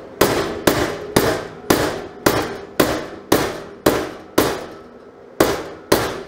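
Body hammer striking the sheet steel of a 1955 Commer truck fender against a dolly, about two blows a second, each with a metallic ring, with a short pause near the end. This is hammer-and-dolly work to bring the edges of a tack-welded butt seam flush.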